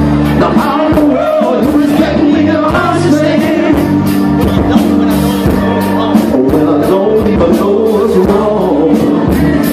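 Live blues band playing, with a singer over electric guitar, bass, keyboards and a drum kit keeping a steady beat.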